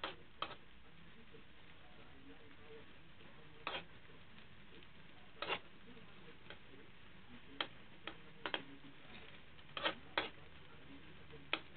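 Metal spatula clinking and scraping against a wok while stir-frying noodles: about ten short, irregular strokes, a few of them longer scrapes.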